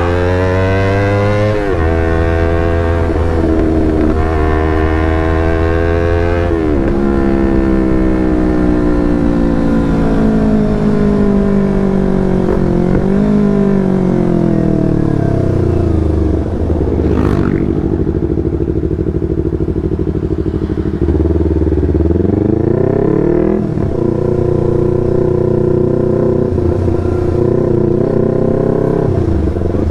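Yamaha R25's 249 cc parallel-twin engine through a Proliner TR1R short aftermarket exhaust, under way: it pulls up through the revs with quick drops at each upshift, winds down about halfway through, then runs on at a steadier pace.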